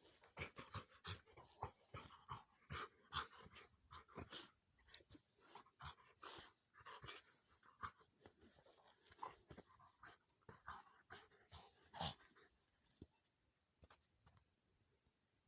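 A dog panting in quick, irregular breaths that die away about twelve seconds in.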